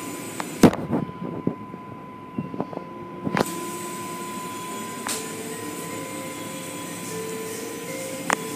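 Automatic car wash running, heard from inside the car: spinning cloth brushes and water spray make a steady rush against the body and glass, with occasional sharp knocks and a steady tone underneath.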